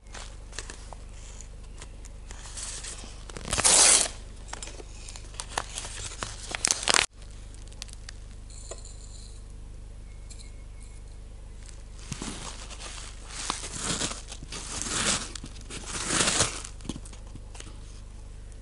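Short, irregular bursts of rustling and crinkling from ingredient packaging being handled and torn, with an abrupt cut about seven seconds in.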